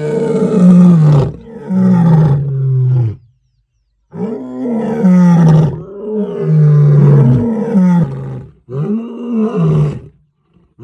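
African lions roaring, the lioness among them: about five long, deep roars, each falling in pitch, with a short break about three seconds in.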